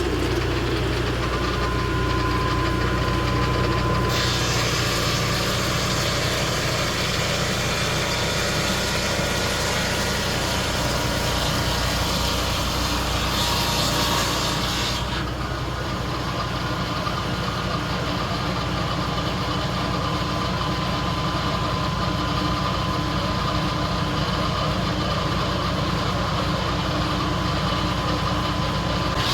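Portable sawmill's engine running steadily, with a thin steady whine, and a louder hiss at the start and again about halfway through.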